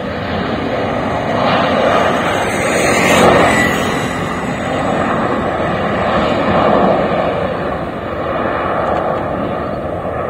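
SpiceJet Boeing 737's twin jet engines at takeoff power during the takeoff roll: a loud, steady roar that swells and eases a little and begins to fade near the end.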